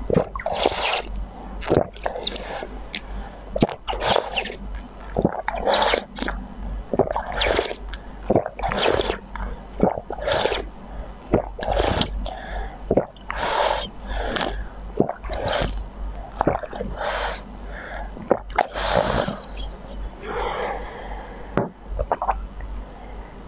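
A person slurping liquid in repeated sips from the spout of a small glass flask, about one noisy sip a second.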